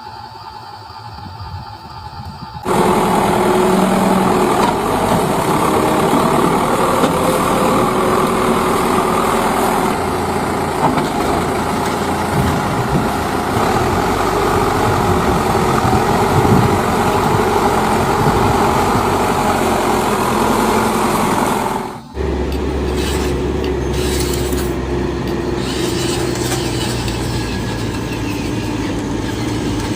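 Radio-controlled dump truck running, with a steady motor and gear sound. It starts abruptly about three seconds in and breaks off for a moment about 22 seconds in. It then resumes with a deeper tone.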